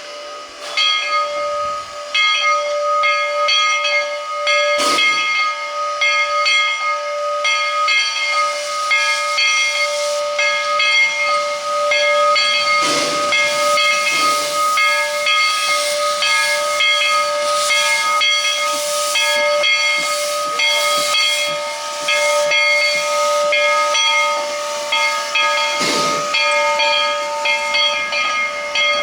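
Narrow-gauge steam locomotive standing under steam: a steady whistling hiss of escaping steam, with its air pump beating in a regular rhythm and a few short, louder gusts of steam.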